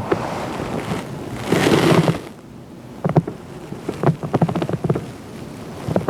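A brief loud rustling burst about a second and a half in, then a run of light clicks and knocks.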